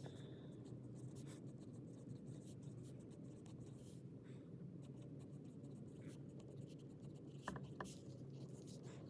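Pen scratching on paper in quick, faint writing strokes, sped up to double speed, over a steady low hum.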